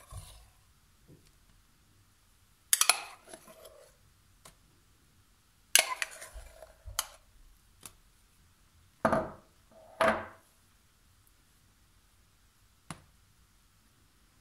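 Metal spoon and cake server clinking and scraping against a glass bowl and glass baking dish while whipped cream is scooped out and spread on a cake. There are about five short, sharp knocks and scrapes, some ringing briefly, spread a few seconds apart with quiet in between.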